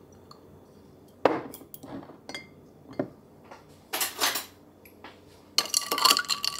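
Hard knocks and clicks on a countertop as a syrup bottle is set down. Then, about five and a half seconds in, rapid clinking as a stirrer knocks around inside a glass of iced coffee.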